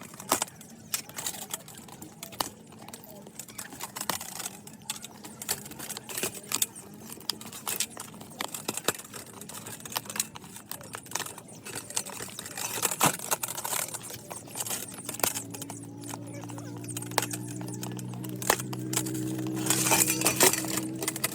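Irregular clicks and taps of keyboard plastic being handled and worked on. About two thirds of the way in, a steady electric motor hum starts and grows louder.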